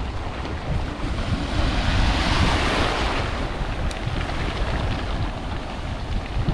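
Sea waves washing and splashing against a stone jetty, with wind buffeting the microphone; the wash swells loudest about two to three seconds in.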